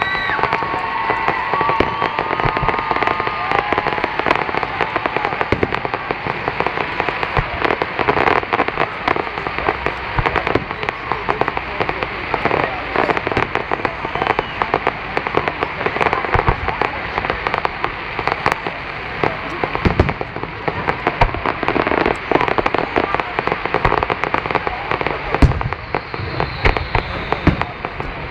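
Fireworks display: a dense, continuous crackle of pops and bangs from aerial shells, with a few steady whistling tones in the first few seconds.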